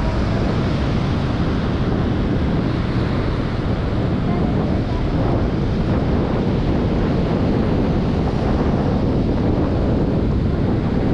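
Wind buffeting the microphone over the steady wash of surf breaking on a beach.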